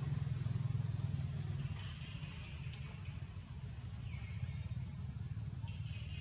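Low engine rumble that drops off about two seconds in, with a few faint, short high chirps and a single click over it.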